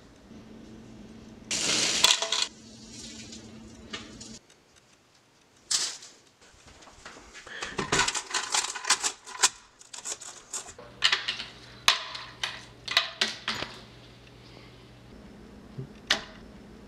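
Food dropped into an empty plastic blender jar: a rush of tortilla chips sliding off a plate, then a long run of sharp clattering knocks and taps as pieces land in the jar and hit its sides.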